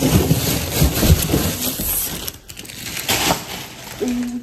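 Ice cubes clattering and clinking against each other and their container: a dense run of clatter over the first two seconds, then one more sharp clack about three seconds in.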